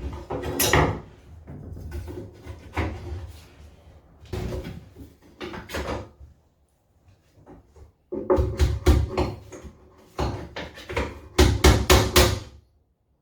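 Hammer tapping small frame nails through the frame runners into a wooden hive box, in several bursts of quick taps with short pauses between.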